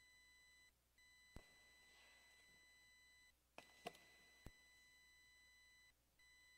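Near silence, with a faint steady electronic tone that drops out briefly about every two and a half seconds, and a few faint clicks.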